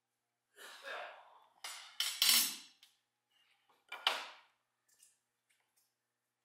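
Wooden frame pieces knocking and scraping against a metal-topped workbench as a mitred frame is handled and laid down: a few short clattering knocks and slides, loudest about two seconds in and again about four seconds in.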